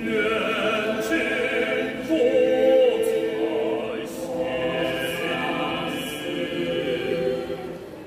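Mixed-voice choir singing sustained, slowly moving chords, swelling louder about two seconds in, with a few faint clicks over the voices.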